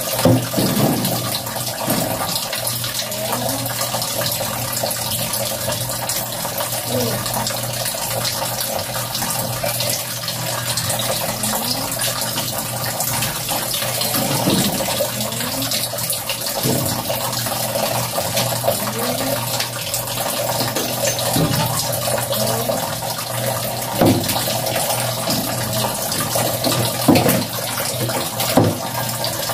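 Tap water running steadily, with a few short splashes as clothes are worked by hand in the water.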